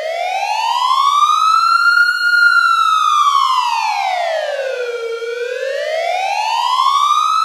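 Emergency warning siren wailing in slow rises and falls of pitch. It climbs for about two seconds, sinks back over the next three, and climbs again near the end.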